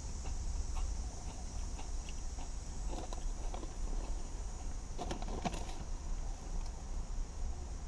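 Crunchy kettle-cooked potato chips being chewed, then the crinkle of the chip bag as a hand reaches in for another chip about five seconds in, over a low steady hum.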